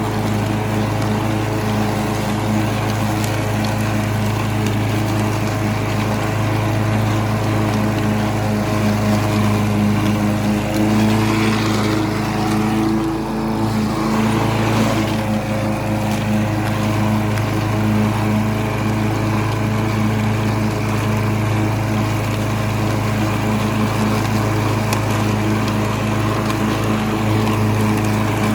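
Gas lawn mower engine running steadily under load, with a brief unsteady patch near the middle.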